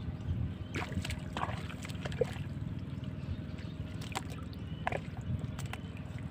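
Hands sloshing and digging in shallow pond water and mud while feeling for mud crabs: a handful of short splashes and squelches over a steady low rumble.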